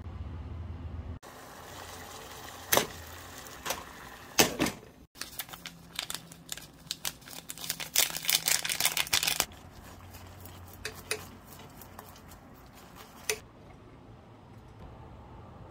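Kitchen handling noises: a quick run of crinkling and ticking as seasoning powder is shaken from a foil packet into a pot of noodles in water. Before it come separate sharp clicks of packaging being handled, and afterwards a knock of the pot being moved on the stove.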